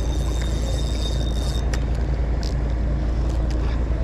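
A steady low rumble, with a faint thin high whine that stops about one and a half seconds in and a few faint clicks.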